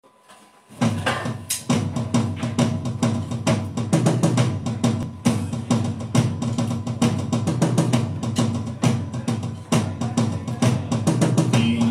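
Instrumental introduction of a sea shanty played live on acoustic guitar, accordion and drums with a steady, rhythmic percussion beat, starting about a second in.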